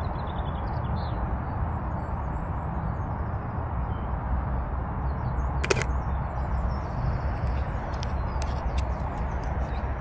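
Outdoor ambience with a steady low rumble and faint bird chirps; about six seconds in, the single sharp click of a Leica M Monochrom 246's shutter firing. A few lighter ticks follow near the end.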